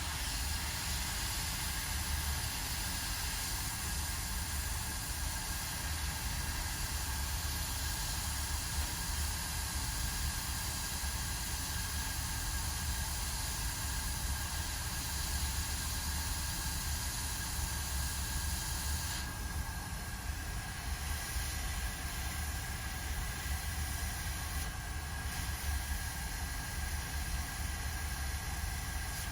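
Steady hiss of blowing air over a low hum at a microsoldering bench; the higher part of the hiss thins slightly about two-thirds of the way through.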